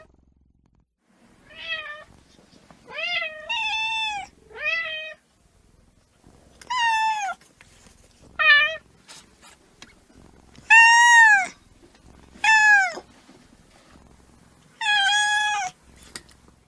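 Kitten meowing repeatedly: about nine short, high-pitched meows with brief pauses between them, each rising and then falling in pitch.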